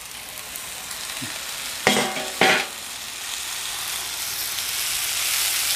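Marinated mutton leg sizzling on a hot flat iron griddle, the sizzle growing louder as the covering steel bowl and banana leaves are lifted off. Two loud, brief knocks come about two seconds in.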